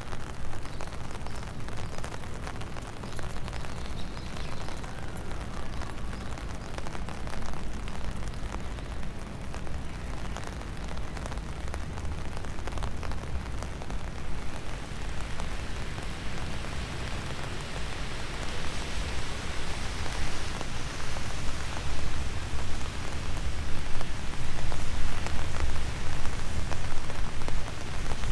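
Steady rain falling, a dense hiss full of small drop ticks over a low rumble, growing heavier and louder in the last third.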